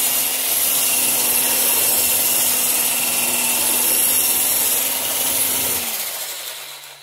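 Hand-held immersion blender running at a steady pitch, its blades churning dry powdered laundry-soap mix in a galvanized metal bucket with a gritty hiss. The motor is switched off about six seconds in and winds down.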